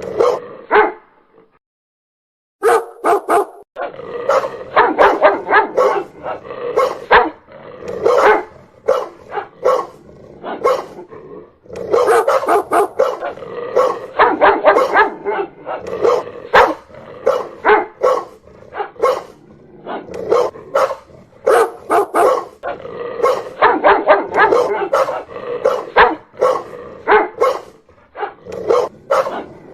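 Dog barking loudly and repeatedly in fast runs of short, sharp barks, with a brief pause about two seconds in.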